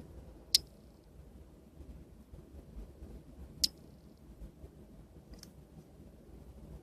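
Three sharp clicks, the first two about three seconds apart and the third about two seconds later, each of the first two trailed by a brief faint high tone, over a low background hum.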